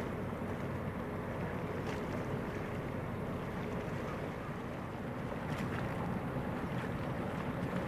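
Steady low drone of a car ferry's diesel engines as the ship passes close, with wind buffeting the microphone.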